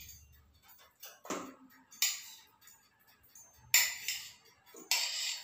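A metal knife clinking and scraping against a stainless-steel mixing bowl as soft butter is scraped off into it. There are three sharp clinks, each with a brief ring, and a duller knock just over a second in.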